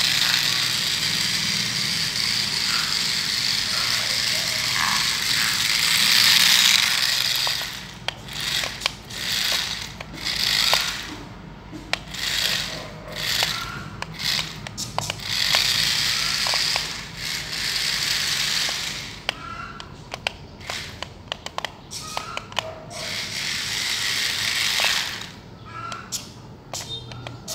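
Small electric motors of a homemade popsicle-stick RC car whirring as it drives on a tiled floor, with clicks and rattles from the light chassis and wheels. It runs steadily at first, then in stop-start bursts from about seven seconds in as it is steered about.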